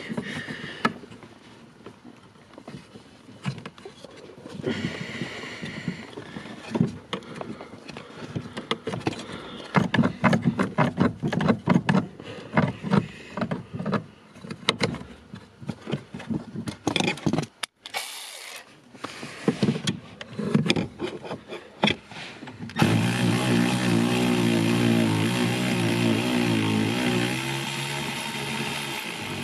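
Ratchet wrench clicking in short runs of strokes on a stubborn 13 mm bolt at the steering shaft joint. Then, about 23 seconds in, a cordless power tool runs steadily for about six seconds.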